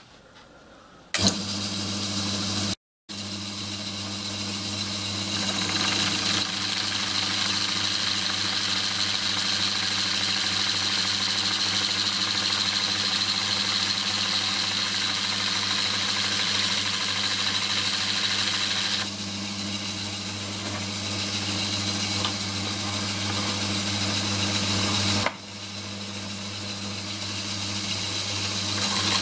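Electric motor belt-driving a small watchmaker's lathe headstock, switched on about a second in and then running steadily with a low mains hum and a higher whine.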